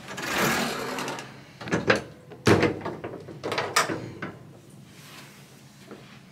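A toilet stall door's slide lock being worked and the door handled: a string of sharp knocks and clicks, the loudest about two and a half seconds in. Before them comes about a second of rushing noise.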